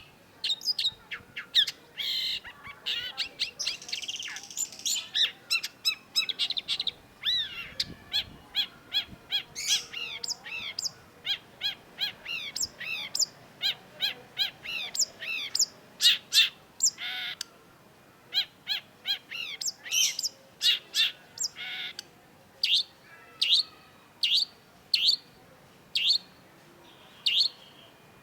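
Long-tailed shrike singing a rapid, varied song of sharp high chirps and chattering notes, with harsher rasping phrases early on. Near the end it slows to single sharp notes about one a second.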